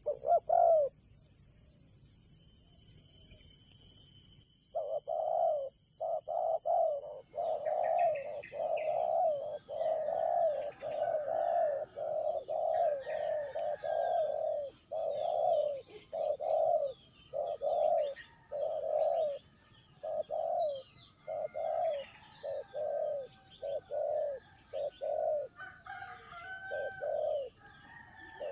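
Coucal calling: a long run of short, low hooting notes, about two a second, beginning some five seconds in after a brief note and a pause. A steady high insect whine runs underneath from a few seconds later.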